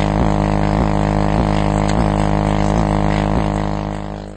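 Music played loud through a car sound system: a heavy, steady low drone with a beat a little under twice a second. It fades near the end and then cuts off abruptly.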